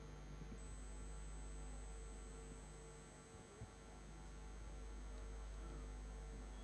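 Steady, faint electrical mains hum.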